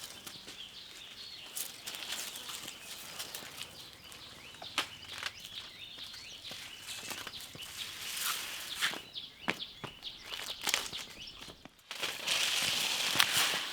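Outdoor ambience with scattered clicks and light knocks. A louder steady hiss sets in about twelve seconds in.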